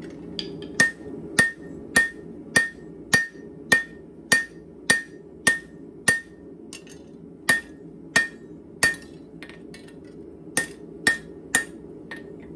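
Hand hammer forging hot leaf-spring steel on an anvil: sharp, evenly paced blows about every 0.6 s, each with a short metallic ring, with a brief pause and a few lighter taps in the middle before the striking resumes. A steady low hum runs underneath.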